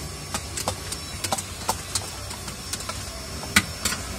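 Steel spoon clinking and scraping against a steel bowl as chicken pieces are tossed in a wet butter-and-cream coating. The clinks are light and irregular, the loudest a little over three seconds in.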